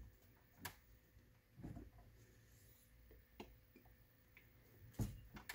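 Near silence with a few faint, scattered clicks and taps of hands handling a plastic alcohol bottle and small parts on a workbench, a slightly louder click near the end.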